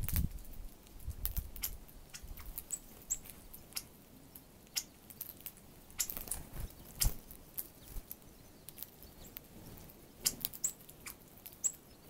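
Northern cardinals and sparrows feeding on loose birdseed right by the microphone: irregular sharp taps and clicks of pecking and scrabbling in the seed, with a flutter of wingbeats at the start as birds take off. A few short, high chip notes come in, twice early and twice near the end.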